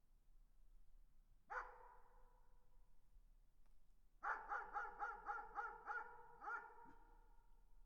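A dog barking in the distance, faint and echoing: a single bark about a second and a half in, then a quick run of about seven barks, their echo trailing off.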